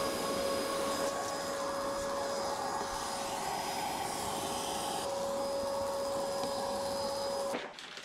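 Vacuum cleaner running steadily with a held whine, its hose attachment sucking dust from a refrigerator's condenser coils under the fridge; it cuts off suddenly near the end.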